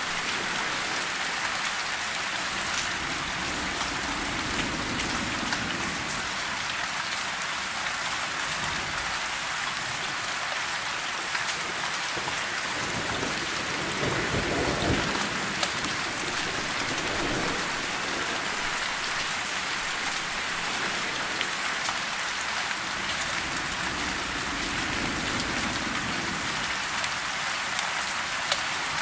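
Steady rain falling, with distant thunder rumbling low several times, the strongest roll about halfway through.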